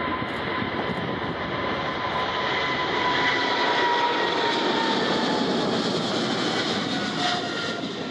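Heavy jet airliner's engines running as it passes, a steady rushing noise with a whine that slowly drops in pitch. It grows louder to a peak about halfway through, then eases off.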